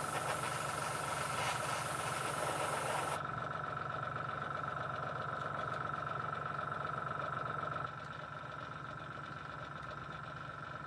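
Airbrush spraying paint with a steady hiss that stops suddenly about three seconds in. Under it, the air compressor's motor runs with a steady hum and a thin whine.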